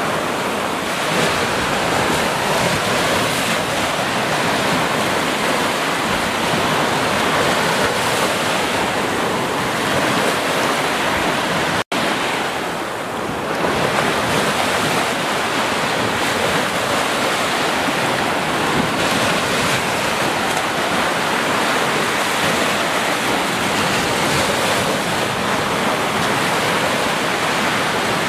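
Ocean surf washing up a sandy beach: a steady hiss of breaking waves and spreading foam, with a split-second break in the sound about twelve seconds in.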